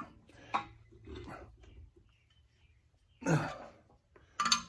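Brief scattered sounds of work as the nut on a homemade cylinder-liner puller is cranked down against a stuck liner: a sharp click about half a second in, then two short, louder strained sounds about three and four and a half seconds in.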